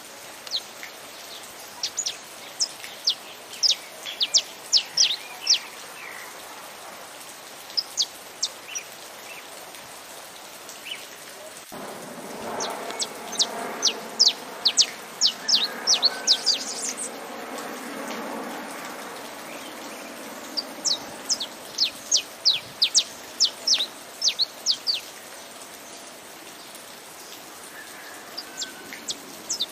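Saffron finch singing in repeated phrases of quick, sharp, high chirps that sweep downward, with pauses of a few seconds between phrases, over steady rain noise. The rain noise swells in the middle.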